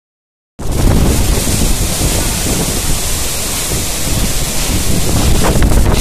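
Strong wind blowing across the microphone: a loud, steady rush with a heavy low rumble of wind buffeting. It starts suddenly about half a second in.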